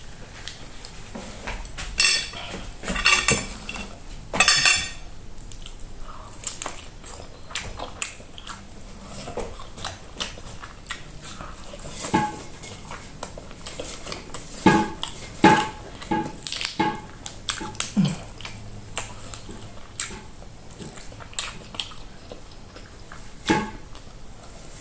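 Metal cutlery clinking and scraping against a plate in three loud clattering bursts a few seconds in, then scattered clicks and mouth sounds of chewing food.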